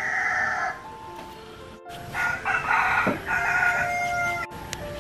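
A rooster crowing, once at the start and again, longer, about two seconds in, over background music.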